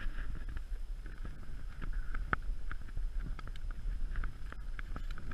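Wind rumbling on the microphone, with scattered short rustles and clicks.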